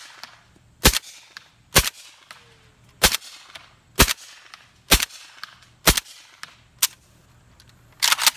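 Draco AK pistol with a Dead Air Wolverine suppressor firing subsonic 220-grain 7.62x39 rounds in a steady string of about eight shots, roughly one a second, each shot with a short tail of echo. The rifle cycles every round, running reliably on this ammunition.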